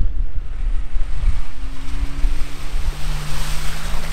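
A vehicle engine running under load while driving off-road, its pitch climbing slightly partway through. There is a heavy low rumble with wind buffeting the microphone, and a rushing hiss that swells near the end.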